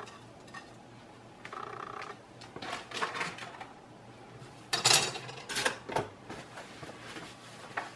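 Dishes and kitchen items clattering as they are handled and set down, in several short bursts, the loudest about five seconds in.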